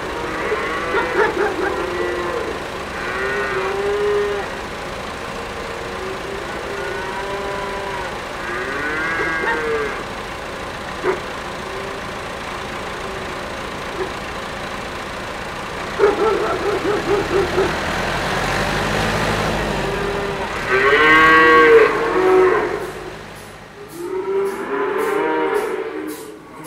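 Cattle mooing, a string of separate calls from several cows, some overlapping, with the loudest calls near the end. A low rumble comes in briefly about two-thirds of the way through.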